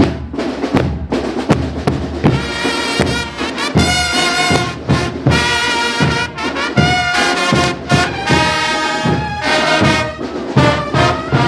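Fanfarria brass-and-drum band playing: drums beat alone at first, then trumpets and trombones come in about two seconds in, playing a melody over the steady drum beat.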